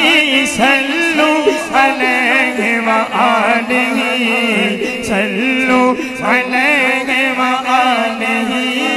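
A male naat reciter singing unaccompanied through a PA microphone in a drawn-out, ornamented devotional style, over a steady held vocal drone.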